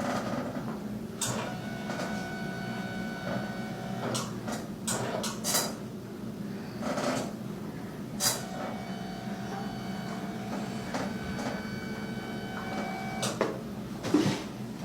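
A small electric motor whines steadily twice, for about three seconds and then about five, over a low hum. Short knocks and rustles fall between the two runs.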